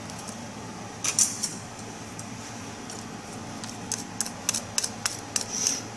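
Wooden chopsticks scraping and tapping a small ceramic dish to push coarse sugar off it into a pan: a short cluster of clicks about a second in, then a run of quick, light clicks and taps in the second half.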